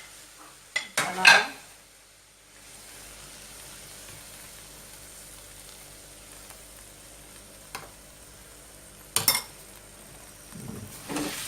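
Food frying in butter in a pan with a steady sizzle that sets in about two and a half seconds in, and a cooking utensil knocking and scraping against the pan a few times.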